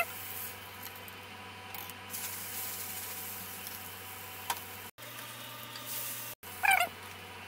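Hot oil sizzling steadily in a frying pan as an egg-coated eggplant omelette fries. A click comes about halfway through, and a short, high squeak near the end is the loudest sound.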